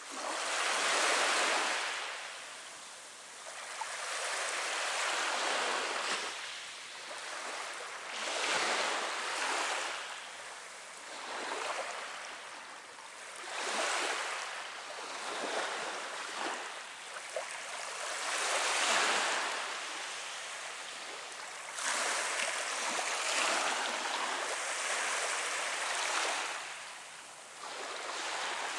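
Small waves breaking and washing up a sand-and-pebble shore, each swell rising and falling away every two to three seconds.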